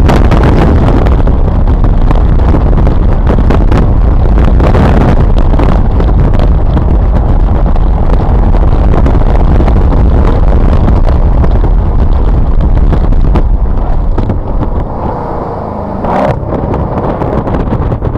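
Mercedes-Benz SLK being driven on a race track: engine and road noise, loud and steady with a heavy low rumble. Near the end the sound drops away for a couple of seconds, then picks up again, a little quieter.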